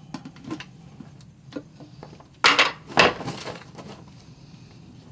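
A brush being worked in a small metal can of wood preservative: light clinks and taps, with two louder scraping strokes about half a second apart midway through.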